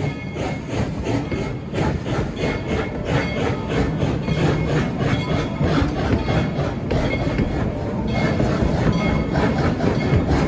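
Steam train running, with a steady rhythmic clatter at about four beats a second over a continuous rumble.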